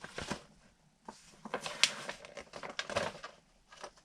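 Plastic packaging and the parts of an unboxed RC rock crawler being handled: irregular crinkling and clicking, with one sharper click a little under two seconds in.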